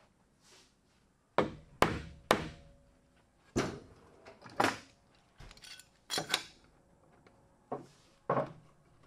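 Sharp wooden knocks, three in quick succession about a second and a half in, then softer, spaced knocks and clatter: a mallet tapping a glued spline home into a walnut miter joint, then a clamp being set across the joint.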